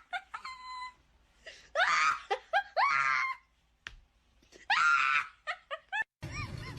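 High-pitched screaming: three long shrieks that rise and fall in pitch, with shorter cries between them.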